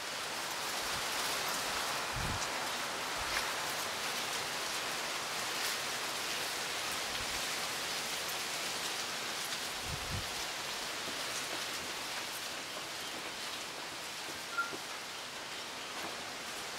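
Wind rustling through the leaves of native bush, palm fronds and bamboo: a steady hiss of foliage. There are two brief low thumps, and one short bird chirp near the end.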